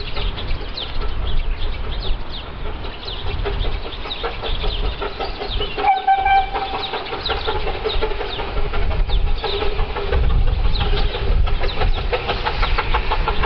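Birds chirping over the low rumble of a miniature railway train, with a brief held tone about six seconds in and a run of quick ticks near the end.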